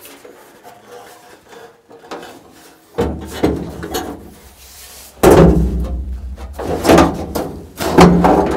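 A large curved sheet-metal panel bumping and scraping against the inside of a sandblasting cabinet as it is manoeuvred in. There is quiet handling at first, then heavy thumps and clangs from about five seconds in.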